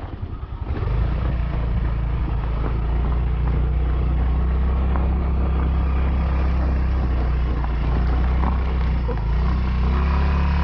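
Motorcycle engine running at a steady speed while riding, heard from on the bike. It picks up and grows louder about a second in, and its note shifts slightly near the end.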